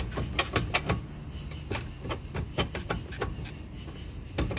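Irregular metal clunks and knocks from the last stator section of a three-stage Kodiak jet pump being rocked back and forth by hand to work it loose from the pump, with a louder knock near the end.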